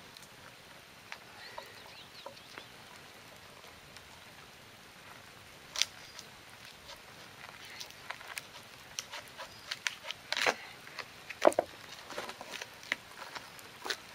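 Bark being stripped by hand from a dead piece of birch: irregular dry cracks and snaps, sparse at first, then coming thick and fast from about six seconds in, over a faint steady hiss.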